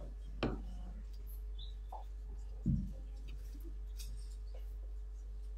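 Quiet pause filled by a steady low mains hum from the sound system, with a few soft knocks and rustles as the reader handles the Torah scroll near a handheld microphone; the loudest knock comes a little before halfway.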